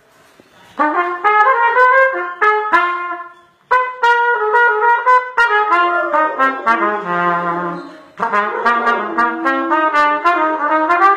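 Trumpet playing a tune as a run of separate notes, with short breaks about three and a half seconds in and again about eight seconds in.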